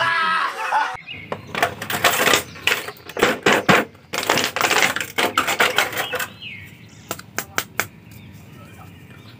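Thin clear plastic blister packaging crinkling and crackling as small plastic action figures are pressed out of it. This is followed by a few scattered light clicks as the figures are handled.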